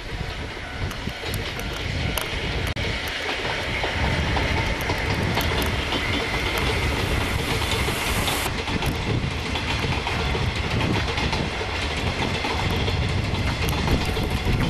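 Freight train of hopper wagons rolling steadily past, the wheels clicking over the rail joints, growing a little louder about four seconds in.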